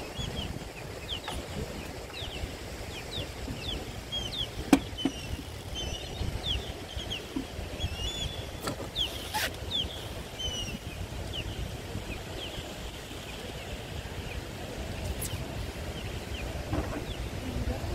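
Many small birds chirping, short quick high calls repeated throughout, over a steady low rumble. A sharp knock about five seconds in, and a few fainter clicks.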